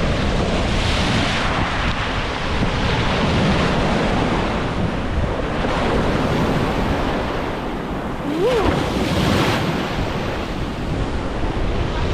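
Sea waves washing onto a beach, with wind buffeting the microphone. About eight seconds in there is one short rising-and-falling whistle-like tone.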